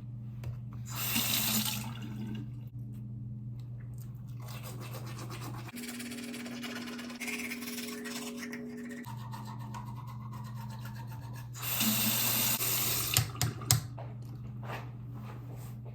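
Water from a tap running into a sink in two short spells, over a steady electrical hum, with a few light knocks after the second spell.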